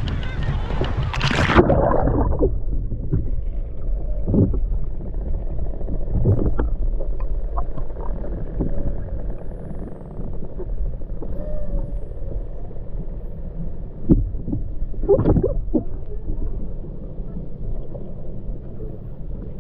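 A splash of water in the first two seconds, then muffled underwater sound: a low water rumble with faint dolphin whistles and scattered clicks, and a short louder swirl of water about fifteen seconds in.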